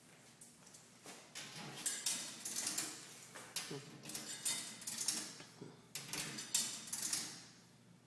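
Quarters clicking and clinking against the coin mechanism of a coin-operated restroom vending machine, a quick irregular series of sharp metallic clicks.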